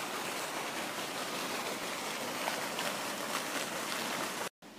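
Steady rushing of fountain water, cutting off abruptly near the end.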